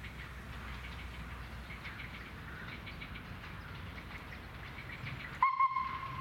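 Small birds chirp over a low rumble. About five and a half seconds in, an approaching train's whistle cuts in sharply, sounding one steady note.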